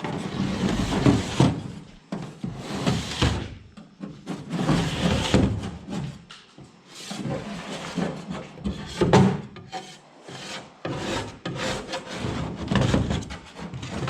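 Paint scraper dragged over an aluminum boat hull in repeated, uneven rasping strokes, scraping off paint.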